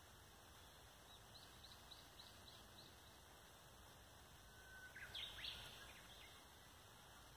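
Faint birdsong over a quiet outdoor hiss: a run of about six short, evenly spaced high chirps, then about five seconds in a louder phrase, a held note followed by a few quick rising notes.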